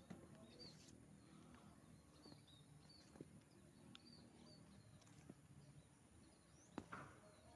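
Near-quiet outdoor ambience with faint, repeated short bird chirps and a couple of soft clicks.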